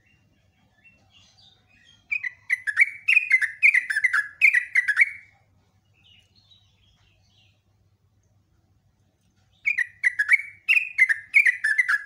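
Yellow-vented bulbul (trucukan) singing: two loud runs of quick falling notes, one starting about two seconds in and lasting about three seconds, the other starting near the end.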